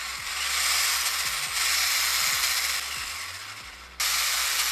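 Traxxas 1/16 E-Revo VXL's Velineon brushless motor driving the gears and drivetrain with the wheels spinning off the ground, a loud steady whir. It eases off slowly, then comes back full at once about four seconds in. This is a bench test of the freshly rebuilt slipper clutch.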